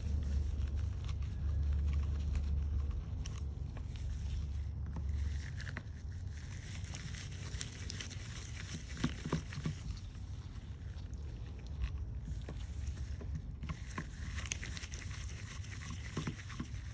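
Small clicks and handling noises as T8 Torx screws are turned out of the back of a Snap-on cordless ratchet's plastic case with a hand driver. A low steady hum runs underneath and stops about five seconds in.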